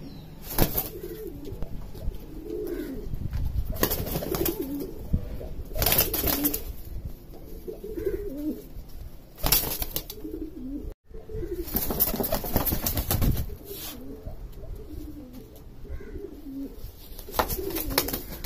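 Domestic pigeons cooing repeatedly in low throaty calls, broken several times by short, louder rustling noises.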